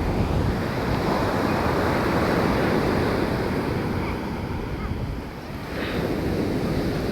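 Sea waves washing in, with wind buffeting the microphone; the surge eases briefly about five seconds in, then builds again.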